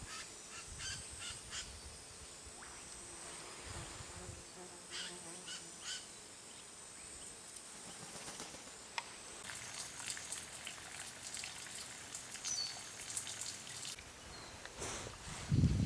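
Faint bush ambience: a steady high-pitched insect drone with short, scattered bird chirps. The drone stops about two-thirds of the way in, giving way to a run of denser high chirps and ticks.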